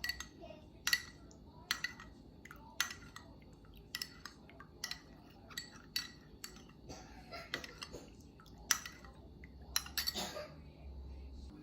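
A spoon stirring a honey syrup mixture, clinking sharply against the side of its container about once a second, with a brief ringing after each strike.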